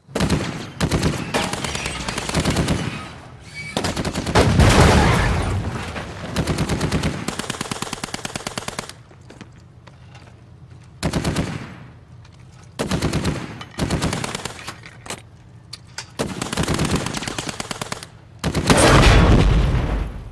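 Automatic gunfire in repeated long bursts with short pauses between them, the heaviest and loudest fire about four seconds in and again near the end.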